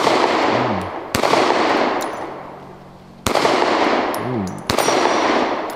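Taurus GX4 9mm micro-compact pistol fired four times at an uneven, unhurried pace, a second or two between shots, each shot trailing off in a long echo.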